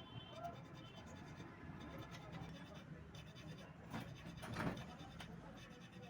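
Faint scraping, loudest in two short scrapes about four and four and a half seconds in, over a low steady hum.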